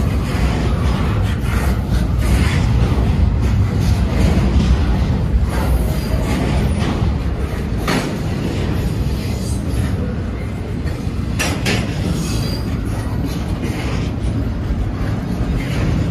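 Double-stack intermodal freight train rolling past at close range: a steady low rumble of steel wheels on rail, broken by scattered sharp clanks and clicks as the well cars pass.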